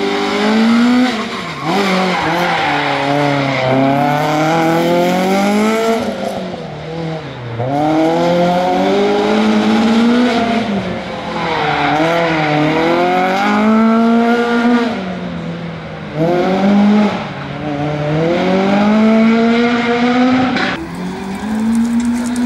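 Citroën C2 R2 rally car's four-cylinder engine driven hard. The revs climb and drop sharply again and again as the car accelerates, shifts and lifts for corners.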